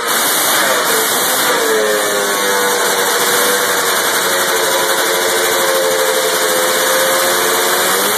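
1976 Arctic Cat 340 Supermod's liquid-cooled two-stroke twin running steadily just above idle; its pitch dips and rises once in the first two seconds, then holds steady.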